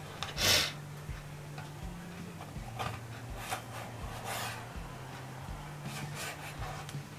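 Soft rubbing and scraping as soaked kombu kelp is handled and trimmed to length. The loudest scrape comes about half a second in, followed by a few fainter ones.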